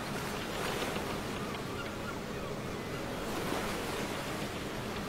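Steady sea-surf and wind ambience: an even wash of waves, with a faint low steady hum beneath it.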